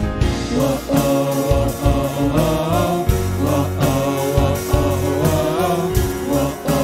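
Live worship band playing an upbeat song on acoustic guitar, ukulele, electric bass, keys and drums, with female voices singing a wordless "wo-oh" melody.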